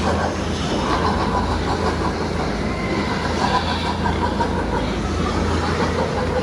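Steady low machine hum under a dense rushing noise.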